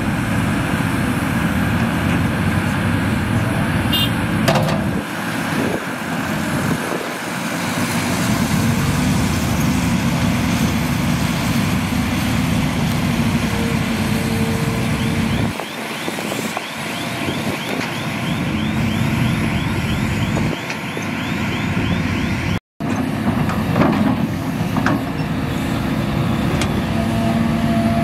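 Heavy diesel engines of a Hitachi excavator and a dump truck running steadily while soil is loaded, with a few sharp metal clanks. The sound cuts out for an instant about two-thirds through.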